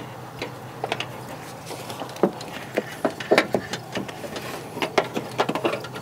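Irregular clicks and light knocks of a hood release cable and plastic trim being handled as the cable is fed through from the car's interior. Sparse at first, busier after about two seconds.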